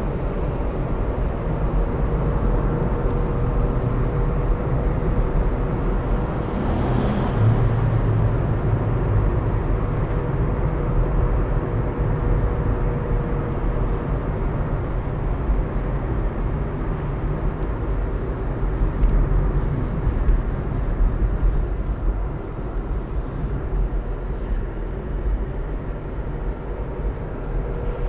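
Car driving, heard from inside the cabin: steady engine and tyre rumble while passing through a road tunnel, with a faint steady hum that fades out about halfway through.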